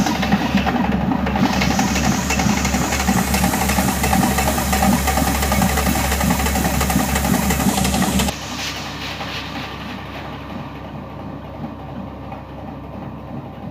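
Grain mill running while it grinds siyez bulgur into a coarse meal for dog food: a loud, steady mechanical noise with a fast low pulsing. About eight seconds in it drops sharply to a quieter level and runs on.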